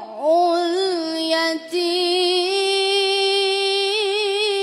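A high voice chanting Quran recitation, drawing out a vowel in a long melodic note. The pitch dips and rises at the start, breaks off briefly, then holds a steady note that wavers near the end.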